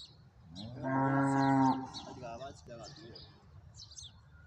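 A cow mooing once, a single steady call lasting about a second.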